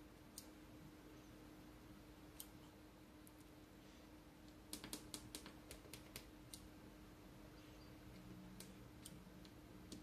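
Small tactile push buttons on a breadboard clicking as fingers press them: a few single clicks, then a quick run of about ten clicks near the middle, over a faint steady low hum.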